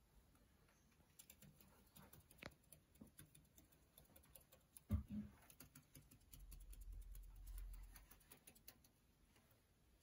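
Near silence: room tone with faint scattered light ticks and patter, a single soft thump about halfway through, and a low rumble for a couple of seconds after it.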